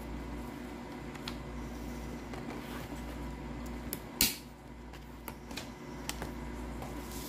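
Metal rings of a ring-binder notebook clicking as pages are handled, with one loud snap about four seconds in and several lighter clicks around it, over a steady low hum.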